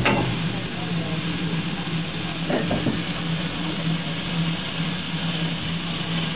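Manning Wardle 0-6-0 saddle-tank steam locomotive hissing steadily with a low hum underneath, with a sharp metallic knock at the very start and another brief knock about two and a half seconds in.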